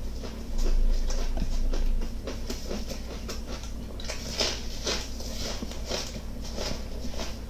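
Close-up crunching and chewing of raw green onion stalks, with crisp bites about twice a second in the second half. A low rumble runs through the first two seconds.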